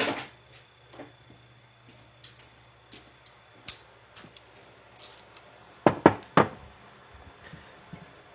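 A ratchet and socket being picked up and handled: scattered metal clicks and knocks, loudest in a quick run of three sharp clacks about six seconds in.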